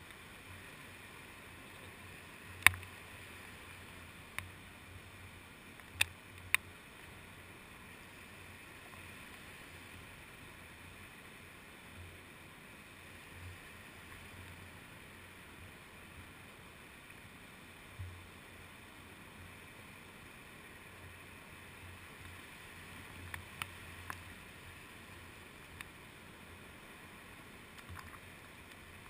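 Shallow surf washing around a GoPro Hero2 in its waterproof case, heard faint and muffled through the housing. A few sharp ticks land against the case, the loudest about three and six seconds in and a cluster near the end, with occasional soft low thumps.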